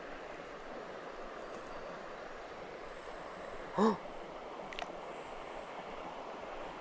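Steady rush of flowing creek water, with one brief voiced sound from a person about four seconds in.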